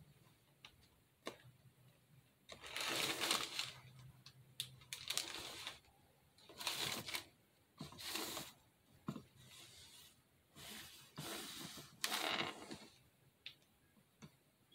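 Plastic piping bag filled with lightweight spackle rustling as it is squeezed and worked, in about six short bursts with small clicks between.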